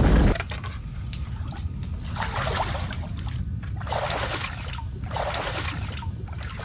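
The loud rumble of an explosion cuts off sharply just after the start. Then a stream trickles over rocks, with small splashes and knocks in the water.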